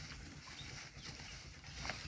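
Cattle grazing outdoors, with scattered small sounds over a steady low rumble and one sharp click near the end.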